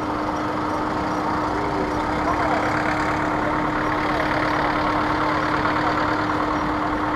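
Road traffic passing: a small pickup truck and then a taxi drive by, engine and tyre noise swelling a few seconds in, over a steady low hum.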